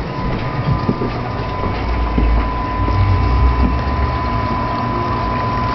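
Steady mechanical hum of reef aquarium equipment heard close to the tank, with a thin steady whine over a low rumble that swells and fades through the middle.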